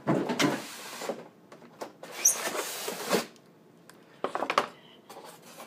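Cardboard toy box and its plastic packaging being handled and opened: a few bursts of scraping and rustling, then a quick run of small knocks a little after four seconds in.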